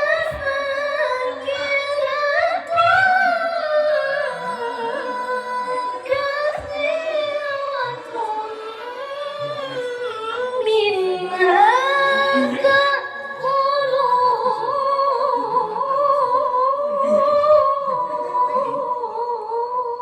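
A woman reciting the Qur'an in melodic tilawah style, singing long held notes with wavering ornaments in a high voice. The line sinks to a low point about ten seconds in, then climbs again and is held.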